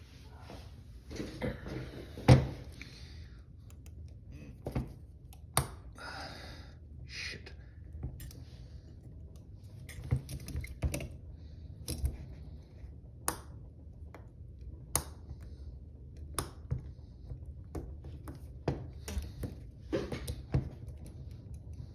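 Hinged steel handcuffs clicking and rattling as a shim is worked into the cuff's ratchet, a run of irregular sharp metallic clicks with the loudest about two seconds in.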